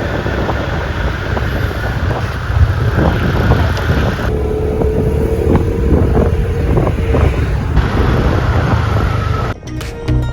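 Wind buffeting the microphone over the steady rumble of a moving vehicle's engine, with a few abrupt cuts. Music starts near the end.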